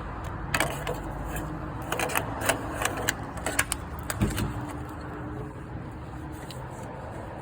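A series of sharp clicks and knocks in the first few seconds, from parts being worked by hand on the minivan, over a steady low hum.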